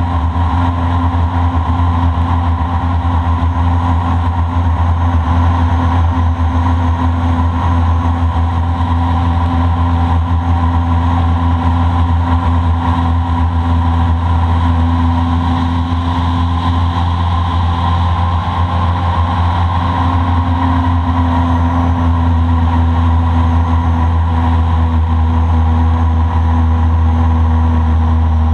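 Boat motor running at a steady speed, a constant low engine hum under way.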